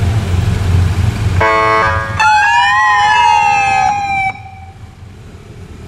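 Escort motorcycles' engines running, then a short steady horn-like tone about a second and a half in, followed by an electronic police siren that rises and then falls over about two seconds and cuts off suddenly.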